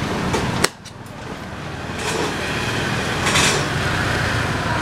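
Street traffic noise that grows louder as a vehicle passes, with a sharp click about two-thirds of a second in.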